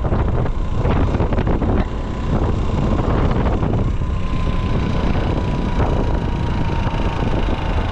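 Wind buffeting a motorcycle-mounted camera's microphone while riding at speed, over the motorcycle's engine running steadily. Gusts batter the microphone in the first few seconds, and a thin steady whine drifts slightly lower in pitch in the second half.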